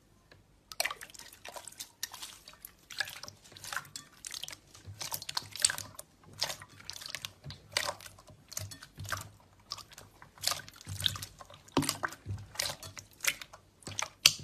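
Hands squishing and poking clear, glossy slime, making quick irregular wet clicks and pops, several a second, starting about a second in.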